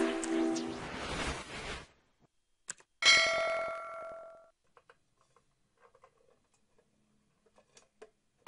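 Intro music fading out, then a single metallic ding that rings for about a second and a half, followed by a few faint small clicks.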